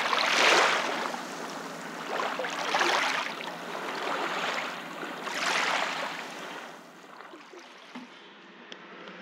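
Small waves washing up onto a sandy shore in several separate swells, one every couple of seconds. They give way to quiet room tone about seven seconds in.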